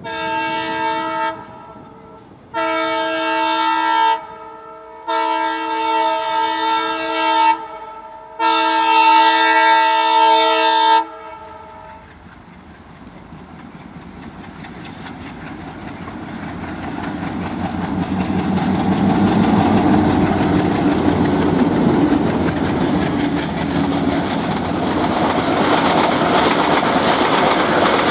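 Twin WDM-3D diesel locomotives sounding their air horn four times, a short blast then three longer ones, the last the longest. After the horn, the engines working hard under a loaded freight train grow louder as they approach and pass, followed by the steady rumble and clatter of the wagons.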